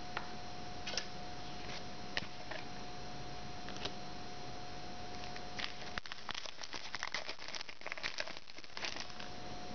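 Trading cards handled and a foil card pack crinkling, with scattered soft clicks at first and a denser run of crinkling and rustling from about six seconds in.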